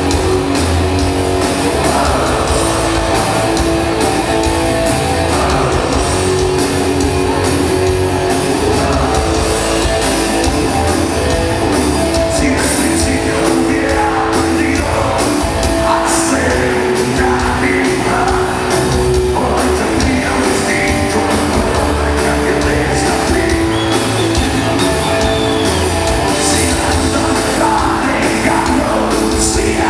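Rock band playing live through a stage PA: electric guitar and drums, with a man singing lines from about twelve seconds in.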